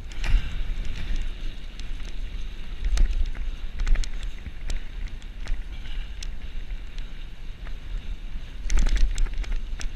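Wind buffeting the microphone during a fast bicycle descent on a rough dirt track, with scattered sharp rattles and knocks from the bike going over bumps, more of them near the end.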